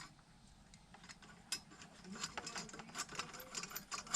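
Small metal clicks and light ticks of hand tools on the Allen screws of an exhaust slip-on's end cap while the screws are being taken out. They are sparse at first and come quickly from about two seconds in.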